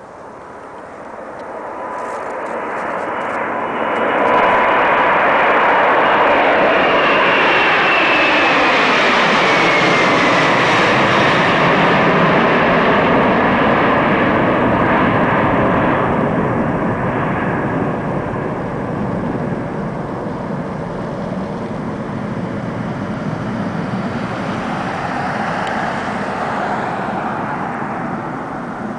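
Boeing 747-400 freighter's four jet engines at takeoff power as it climbs out overhead. The sound builds over the first few seconds and holds loud, with a high whine falling in pitch as the jet passes. It then slowly eases off as the aircraft climbs away.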